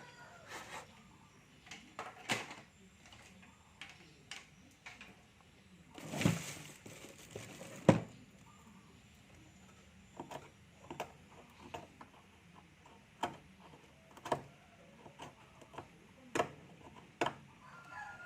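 Irregular sharp clicks and taps of small hand tools at a repair bench, working the pins of a desoldered amplifier selector switch. There is a short scraping rustle about six seconds in, and the loudest click comes near eight seconds.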